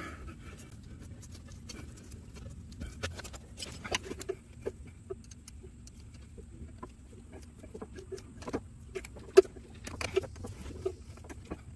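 Small scattered clicks, taps and rustles of hands working on the fuel line at a mechanical fuel pump, with one sharp click a little over nine seconds in.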